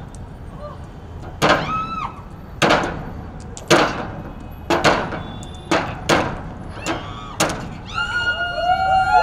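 Repeated heavy blows of a hand tool chopping into a wooden plank, about one a second, with short shouts after the strikes and a burst of shouting voices near the end.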